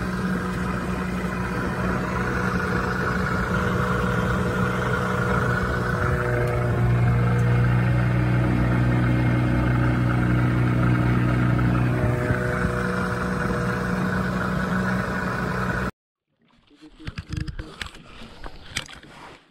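Boat's outboard motor running steadily under way with water noise, shifting speed a couple of times, then cutting off suddenly near the end, followed by a few faint knocks.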